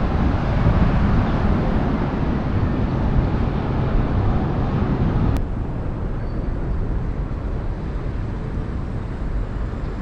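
Steady outdoor background noise with a heavy low rumble and no distinct events. It drops slightly in level about five and a half seconds in.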